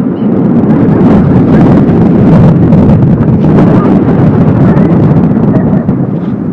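Loud rushing of wind buffeting a phone microphone and a snow tube scraping over packed snow during a fast downhill run, dying down near the end as the tube slows.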